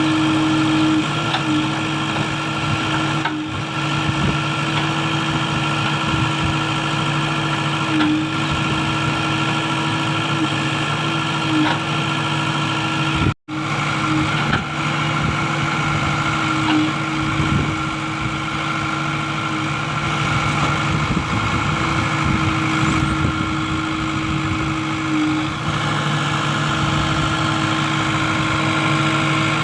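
A heavy diesel engine running steadily at a constant idle. The sound cuts out for an instant about 13 seconds in.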